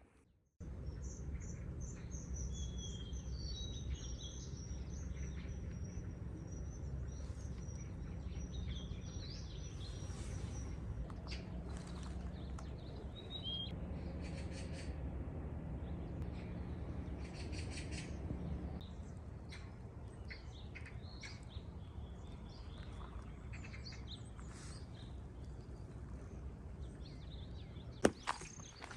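Small birds chirping on and off, most busily in the first dozen seconds, over a steady low rumble of wind. A single sharp knock near the end.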